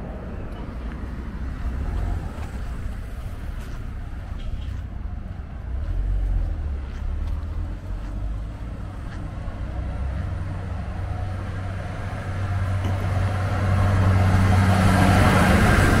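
Road traffic: a steady low rumble, then a motor vehicle's engine growing louder and passing close near the end.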